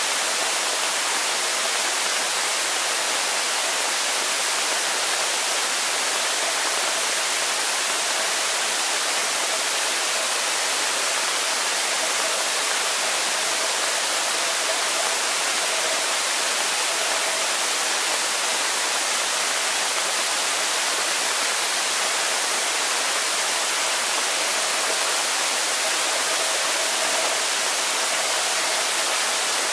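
Steady, even hiss of a camera recording underwater on the bottom of a swimming pool, with a faint hum that fades in and out.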